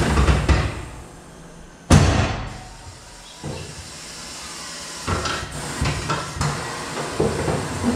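Tyre-changing machine work. About two seconds in there is a loud clunk with a rush of air that fades over about a second. After that come irregular knocks and scrapes as the wheel and rubber tyre are handled against the machine.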